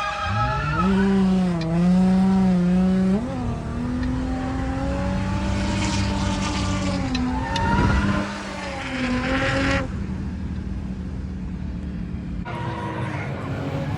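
A drifting car's engine held at high revs, its pitch climbing and then wavering up and down as the throttle is worked, with tyre noise. The sound changes abruptly about ten seconds in and again near the end.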